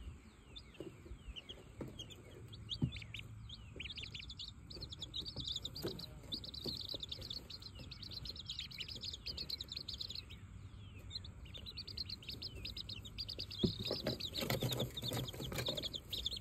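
Baby chicks and ducklings peeping continuously in many quick, high, falling chirps. Near the end there is a stretch of rustling and knocks.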